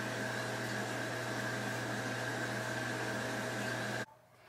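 Steady background hum and hiss, with a low drone and a fainter higher whine, cutting off abruptly about four seconds in.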